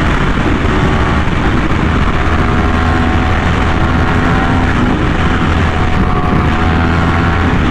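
Yamaha R1M's crossplane inline-four running through an SC Project exhaust, holding a steady engine note while riding at speed.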